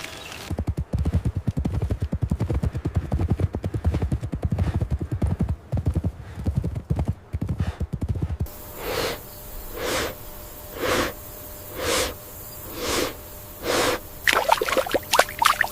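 Horse hooves clattering in a rapid, dense beat for about eight seconds. Then a rhythmic hissing sound repeats about once a second, with a few sharp clicks near the end.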